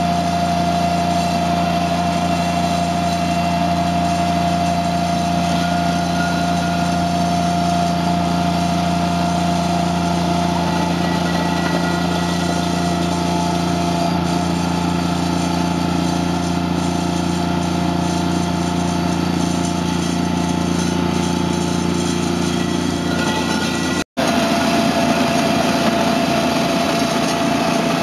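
Toro Dingo TX525 compact tracked loader's engine running steadily while it drives a Harley rake attachment through gravel, with a steady high tone over the engine. The sound cuts out for a split second about three-quarters of the way through.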